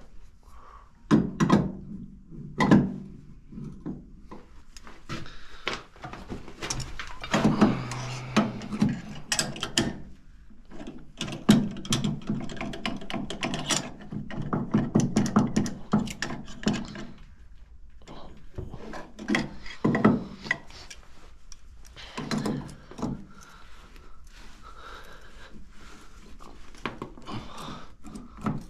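Irregular metal knocks, clanks and clatter of hand tools and parts while working on a tractor's fittings, with a busy stretch of rapid rattling in the middle and a few louder single knocks.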